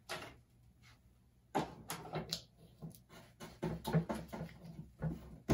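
Handling noises on a work table: a string of light knocks and taps with brief rubbing as wooden boards, map paper and a brush are worked by hand. The sharpest knock comes near the end.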